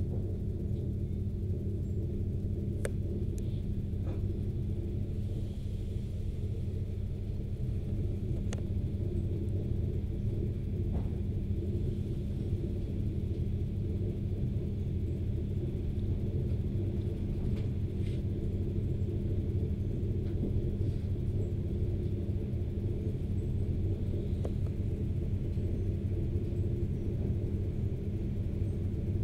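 Interior of an ED4MK electric multiple unit rolling slowly. A steady low rumble and hum runs throughout, with a few faint clicks.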